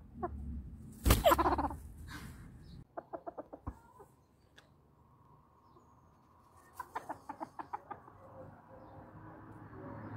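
A rooster gives one loud call about a second in, then two runs of quick short clucks, one around three seconds in and another around seven seconds in.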